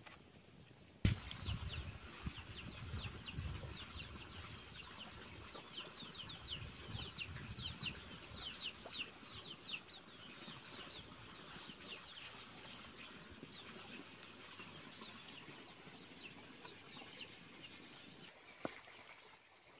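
Chicks peeping: a dense, continuous run of short, high, falling chirps that starts suddenly about a second in and fades near the end, with a low rumble in the first few seconds.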